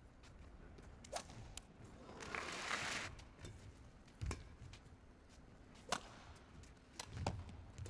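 Badminton racket strings hitting a shuttlecock during a rally: several sharp cracks about one to two seconds apart. There is a brief rush of noise about two seconds in.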